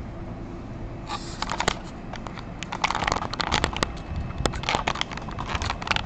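Handling noise: fingers rubbing and tapping on the camera, a dense run of crackles and clicks starting about a second in, over a faint steady hum.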